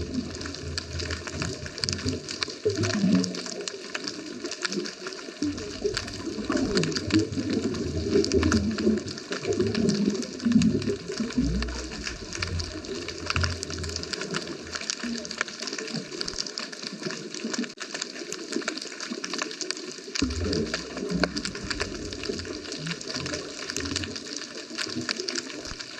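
Underwater sound of a scuba diver's exhaled air bubbles rushing and gurgling in surges, one long surge about five seconds in and a shorter one about twenty seconds in, with quieter gaps between breaths. A fine, steady crackle of tiny clicks runs underneath.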